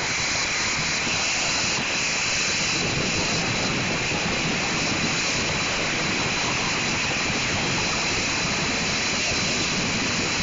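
Water churned by the paddle wheels of an ATV-powered paddle boat: a steady, even rush of water.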